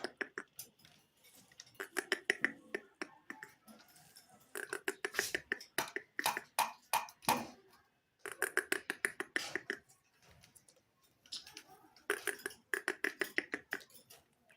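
Rapid trains of clicking mouth sounds, about ten clicks a second, in repeated bursts of one to three seconds with short gaps between them.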